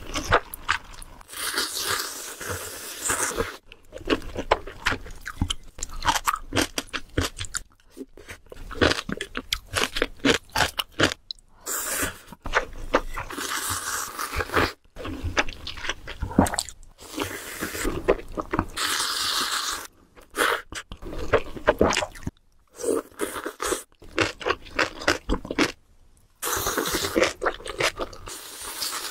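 Close-miked eating of spicy instant ramen: long hissy slurps of noodles pulled in from a spoon, several times, with wet chewing and small clicks of the mouth between them.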